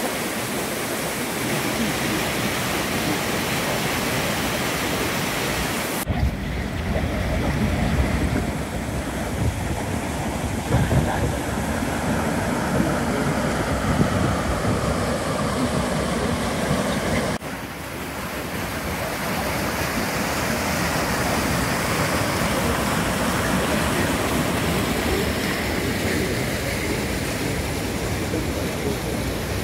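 Floodwater rushing over a dam spillway in a steady roar of whitewater, the lake running about two feet over the spillway crest. The sound changes abruptly twice, turning duller and deeper for a stretch in the middle before going back to the brighter rush.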